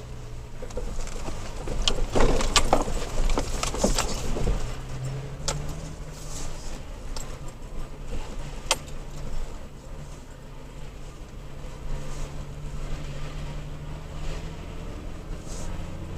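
Third-generation Toyota Tacoma driving a rough dirt road: a low, steady engine drone with rattling and clattering of loose gear, heaviest between about two and four seconds in, and a few single sharp clicks after that.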